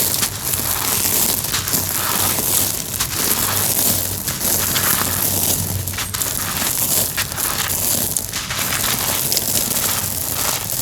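Dry homemade cement pieces crunching and crumbling, a continuous dense gritty crackle of many small cracks and snaps.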